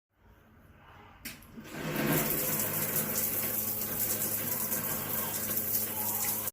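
Water turned on through a Rubine RWH-SSE891D instant water heater: a click about a second in, then a steady rush of running water from about two seconds in, with a steady low hum from the heater's DC booster pump under it.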